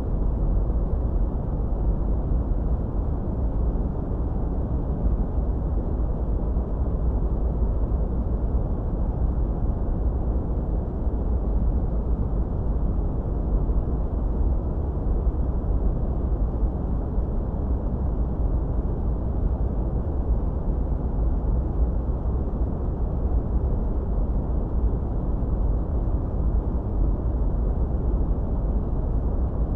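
Steady generated noise for tinnitus masking: a deep, even rushing rumble, heaviest in the bass and dull in the treble, with no changes or events.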